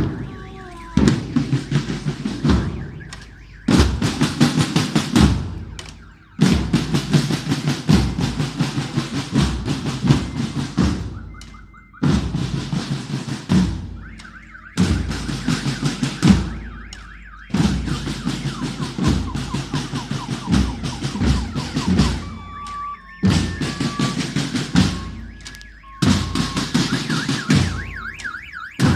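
School marching band playing on the move: snare and bass drums beating fast, with bell lyres ringing out single notes over them. The music comes in blocks of a few seconds that cut off and start again abruptly.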